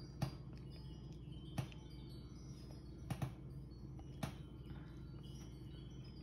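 Steady low room hum with a few soft, short clicks spread through it.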